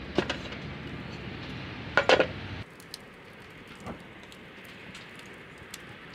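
Metal utensils clinking against a takoyaki plate while takoyaki cook: a couple of sharp clinks, then a louder cluster about two seconds in, then fainter scattered ticks. A steady low rumble under them cuts off suddenly partway through.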